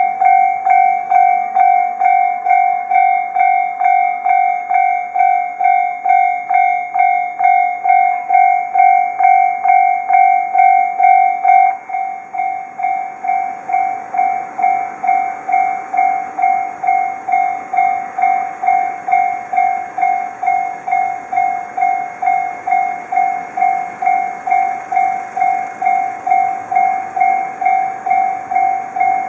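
Japanese railway level-crossing warning bell ringing, a repeated two-pitch electronic ding a little over twice a second. About twelve seconds in the ringing drops in level and a steady rushing noise joins it, a train going through the crossing.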